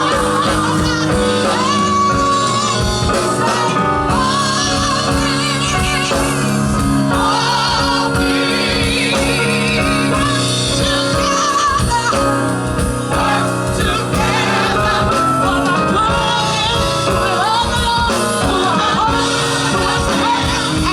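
Gospel group singing live with band backing: several voices sung with heavy vibrato over a steady drum beat and bass.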